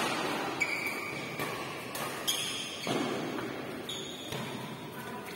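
Badminton court sounds in a large echoing hall: a few brief high squeaks of court shoes on the floor, and scattered sharp clicks of rackets striking shuttlecocks.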